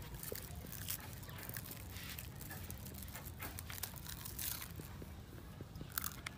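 Soft, scattered rustles and crinkles of a plastic snack packet being handled, over a low steady rumble.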